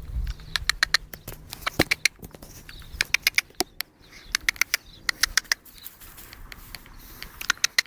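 Sick hen making short bursts of rapid, sharp clicks, about five bursts with pauses between.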